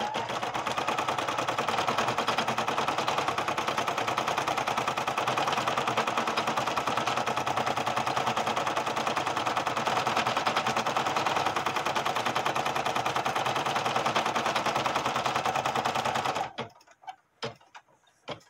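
Brother PE770 embroidery machine stitching a tack-down stitch on an applique piece: a fast, even rattle of needle strokes that stops suddenly near the end, followed by a few clicks.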